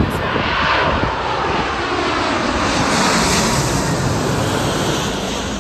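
Jet engines of a twin-engine American Airlines Boeing 777 on final approach, passing low overhead: a loud, steady rush of engine noise that peaks about three seconds in and begins to fade near the end, with a whine that falls in pitch as the aircraft goes by.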